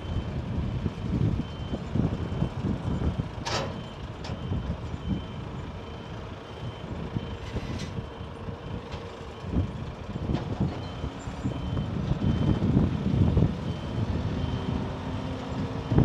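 A reversing alarm beeping at a steady pace over the running diesel engine of a Renault Trucks hook-lift truck as its hydraulic arm tips the roll-off container up. There is a sharp clank a few seconds in and a short hiss about halfway.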